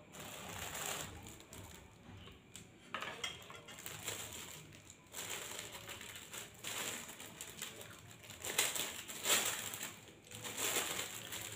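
Crisp rengginang rice cracker being broken apart by hand and chewed: a run of irregular crunches and crackles.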